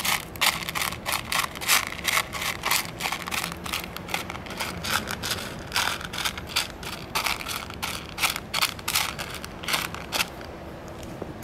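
Rapid, irregular crunching clicks, several a second, that die away about ten seconds in.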